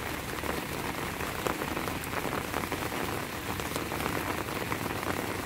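Heavy rain falling steadily, with many small, close drop hits.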